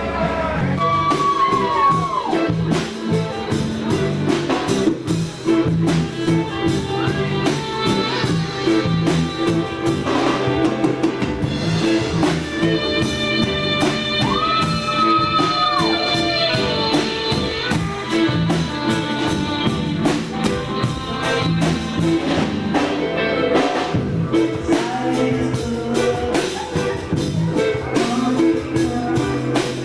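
A band playing blues-rock music with a drum kit, guitar and singing. Lead lines slide and bend in pitch twice, near the start and about halfway through.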